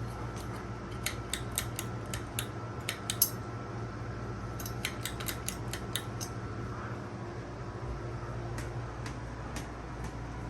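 Broan ceiling fan running with a steady hum and whoosh, over which come irregular sharp metallic clicks: a quick cluster in the first three seconds, another around five to six seconds in, and a few more near the end.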